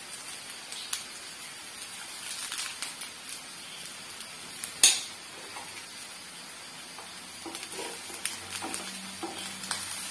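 Oil sizzling and crackling in a nonstick frying pan as steamed bottle-gourd muthiya shallow-fry with a mustard seed and curry leaf tempering, with one loud sharp pop about halfway through.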